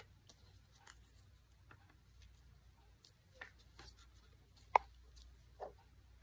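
Faint rustling of construction paper being handled and pressed down on a table, with a few small clicks and taps, the sharpest one about three-quarters of the way through.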